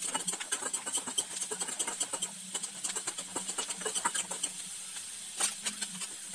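Groundnuts frying in hot oil in a stainless steel kadai, a steady sizzle with dense crackling, as a metal spatula stirs them, scraping and clicking against the pan. They are being fried until golden brown.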